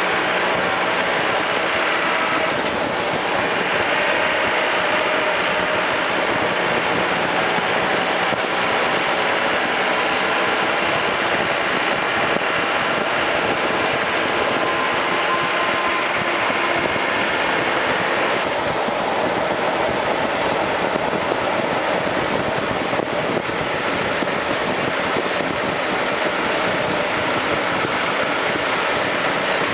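Land Rover Defender 110 on the move: steady running noise with several faint tones that drift slowly in pitch, changing character about three seconds in and again about eighteen seconds in.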